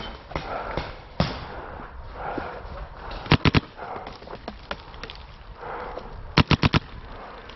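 Paintball marker firing two quick bursts of sharp cracks: three shots about three and a half seconds in, then four shots a few seconds later.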